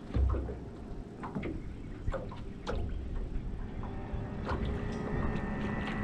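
Scattered knocks and clunks of gear handled in a small aluminium boat, over water sloshing against the hull. About five seconds in, a steady motor hum comes in.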